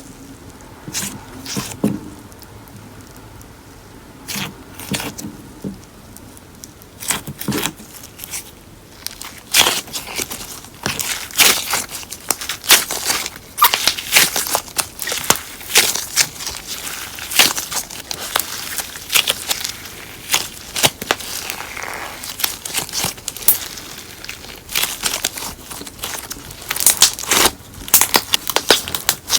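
Slime mixed with paper clay being squeezed and pulled by hand, making irregular sticky crackles and pops. The pops are sparse at first and come thick and fast from about ten seconds in.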